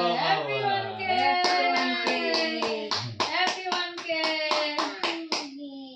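Several people clapping in a steady rhythm, about four or five claps a second, while singing together, children's voices among them. The clapping starts about a second and a half in and stops near the end, leaving the singing.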